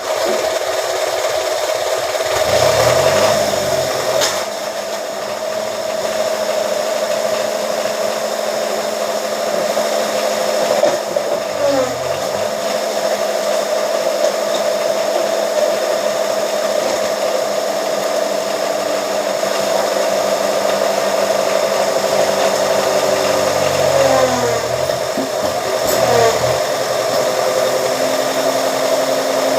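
Press machine's motor running steadily with a constant whine. Its pitch sags and recovers a few times, around 3, 12 and 25 seconds in, as the press takes load while flattening scrap iron.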